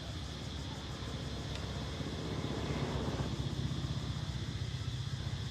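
A motor vehicle engine running with a steady low rumble, growing louder about two and a half seconds in and easing back slightly near the end.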